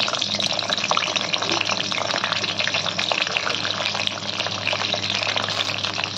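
Whole small brinjals sizzling and crackling in hot oil in a kadai as more are dropped in, a steady dense spitting with many small pops. Their moisture from soaking in salted water is what makes the oil spit.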